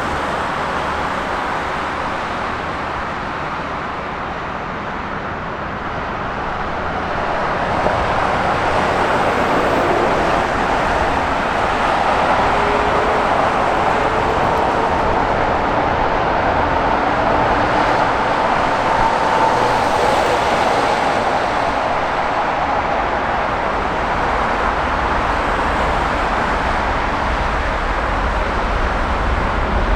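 Jet airliner engine noise from a passing aircraft. It is a dense rushing roar that swells about seven seconds in and holds, with a faint whine in it.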